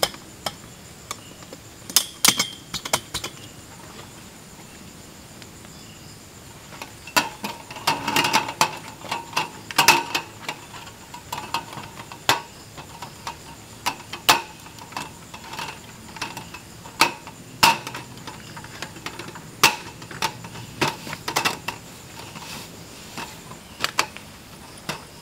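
Folding metal camp table being put together: irregular clicks, knocks and rattles as the leg frame is snapped open and the top panel is fitted on, over a steady high insect trill.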